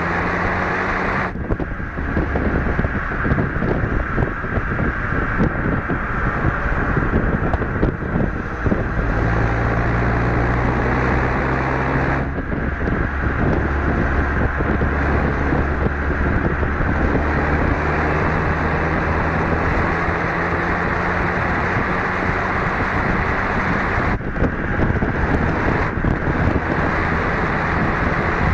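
Renault Mégane RS 250 Cup's turbocharged four-cylinder engine driven hard on track, its note rising and falling in steps through the gears, over a heavy rush of wind and road noise.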